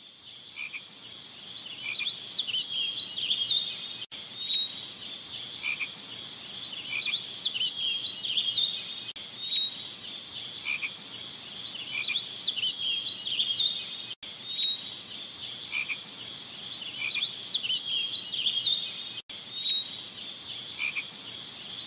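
Evening frog chorus ambience: many small frogs calling in short, high chirps, a pattern that repeats about every five seconds with a few brief dropouts.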